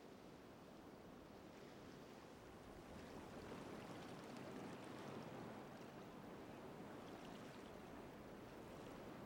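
Faint, even rushing noise, swelling a little a few seconds in and easing off again near the end.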